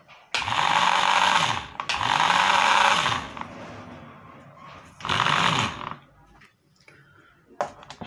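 Hair dryer's blower motor switched on in three short bursts, the fan whirring up, pushing air, and winding down each time. The dryer is running again now that its cut mains cord has been rejoined.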